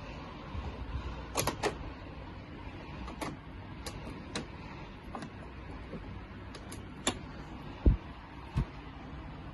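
Sharp plastic clicks and taps from handling the blue air filters and hinged front panel of a split-type wall air conditioner, scattered irregularly, with two duller knocks near the end over a steady background noise.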